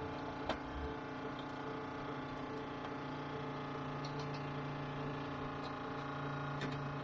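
A steady machine hum, with a few light clicks as the heating element's wiring and thermostat are handled, one clear click about half a second in.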